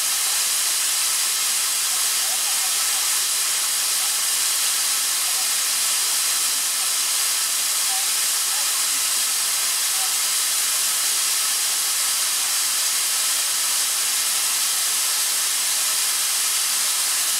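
Atlas Copco ZR75VSD two-stage oil-free rotary screw air compressor running: a steady, even hiss with most of its energy high up, with no pauses or changes.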